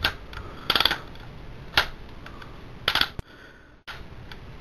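Plastic Transformers Animated Bulkhead action figure clacking as its push-down button swings the arms in its punching action feature: a few sharp plastic clicks about a second apart.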